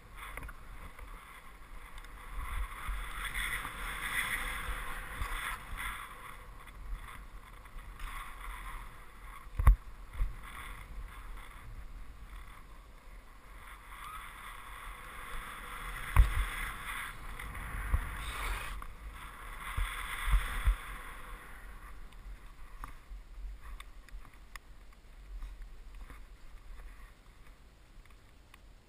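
Skis hissing through powder snow, swelling and fading with the turns, with a few dull thumps about ten, sixteen and twenty seconds in.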